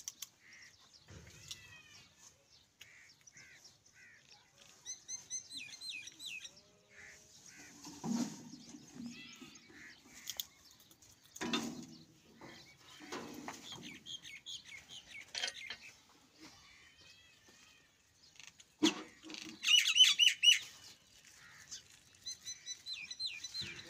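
Small birds chirping in short repeated calls, loudest in a quick run of chirps about twenty seconds in, with a few scattered knocks.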